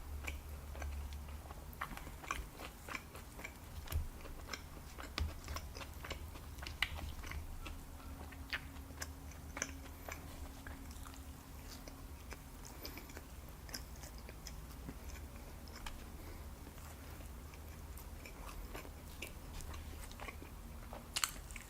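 A person chewing and biting food close to the microphone, with many small mouth clicks spread throughout, over a steady low hum.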